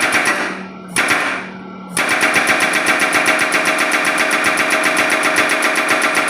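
HMB750 hydraulic breaker hammer striking: two short bursts of blows about a second apart, then from about two seconds in a steady, rapid run of evenly spaced blows.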